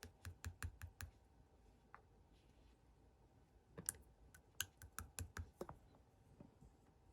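Pearl slime being pressed and worked by hand, giving off faint, sharp popping clicks as air pockets burst. The clicks come in two quick runs, one at the start and another from about four seconds in to nearly six.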